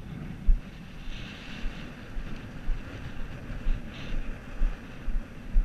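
Wind buffeting the microphone, with the thud of footsteps on dry, sandy ground about twice a second.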